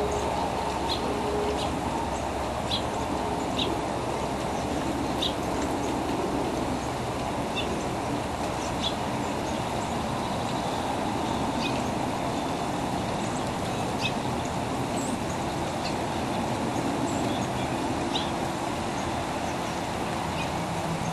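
Birds chirping: short, high chirps come every second or so over a steady low rumble.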